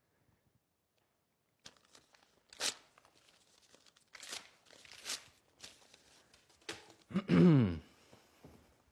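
A paper letter being torn by hand: several short rips a second or so apart. Near the end comes the loudest sound, a short vocal sound that drops in pitch.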